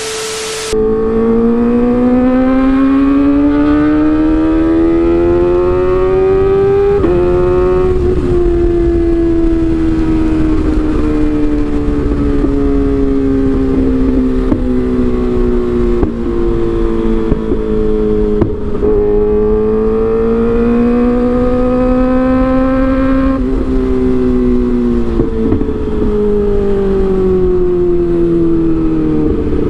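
Kawasaki ZX-25R's 249 cc inline-four running through an Arrow aftermarket exhaust. The engine pitch climbs and falls slowly with the revs, with two sudden steps about seven and twenty-three seconds in. A brief rush of noise comes at the very start.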